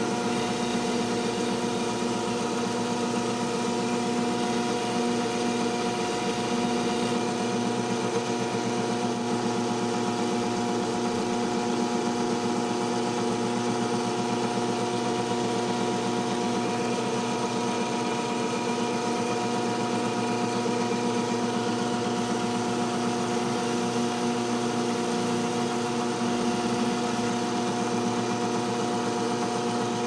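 Electric motor of a gem-cutting rig running steadily, spinning the cutting disc while a blue gemstone is cut against it: a constant hum with no change in speed.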